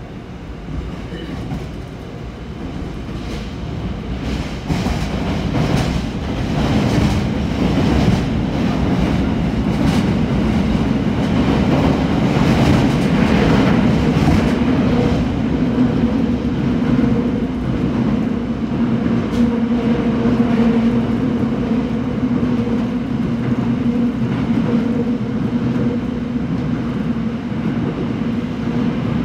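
Seoul subway train heard from inside the car, pulling away from a station into the tunnel. The rolling noise and clatter of the wheels grow louder over the first seven or eight seconds as it speeds up, then settle into a steady running drone with a low hum.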